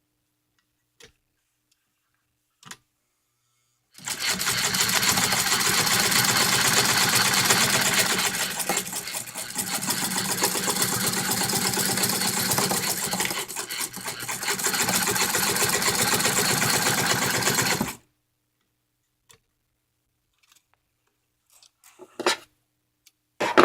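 1957 Toyota Marvel De Luxe sewing machine stitching through two layers of leather with interfacing, running steadily for about fourteen seconds with a couple of brief slowdowns before it stops. The needle goes through without trouble, even though it is not a leather needle. A few light clicks follow near the end.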